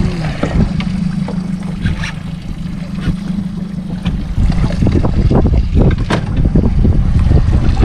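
Wind buffeting the microphone on a small boat at sea, with a steady low hum and a scattering of short ticks and knocks, the sharpest about six seconds in.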